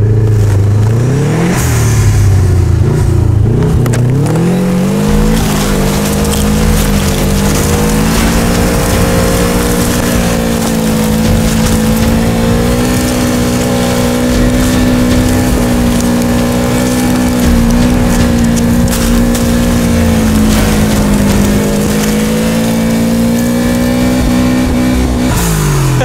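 Subaru's EJ20K turbocharged flat-four engine revving up and held at high revs as the car ploughs through deep snow, with a steady hiss of snow spray over the engine. The revs climb twice in the first few seconds, stay high and even for about twenty seconds, then drop just before the end.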